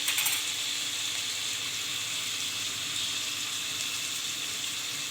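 Onion and tomatoes frying in oil in a pan, a steady sizzle, with a few light clicks in the first moment.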